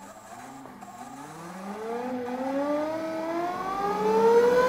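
Nova Voyager drill press's 1¾ horsepower direct-drive DVR motor and spindle whining as the speed is dialed up from a crawl of about 50 RPM. The pitch climbs steadily and the sound grows louder.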